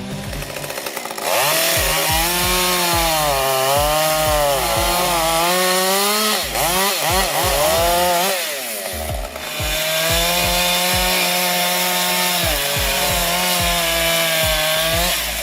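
Gasoline chainsaw running at high revs and cutting through wood. Its pitch rises and falls as the chain loads and unloads in the cut. It jumps up about a second in, eases off briefly around eight seconds in, then picks up again.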